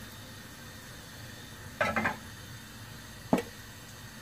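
A few clinks and knocks of cookware as a small wok is handled on a gas stove: a short cluster about two seconds in and one sharp click a little later, over a low steady hiss.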